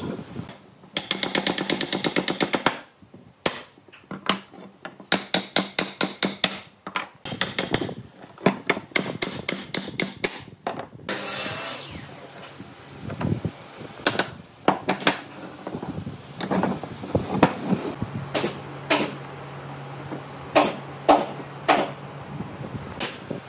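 Wood-on-wood knocking as a wooden block taps the joints of a wooden frame together, in quick runs of rapid taps through the first half, then scattered single knocks as wooden parts are handled on the workbench.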